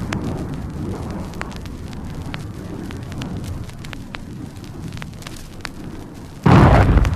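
Low rumble of a blast dying away, with scattered crackles, then a sudden loud explosion about six and a half seconds in.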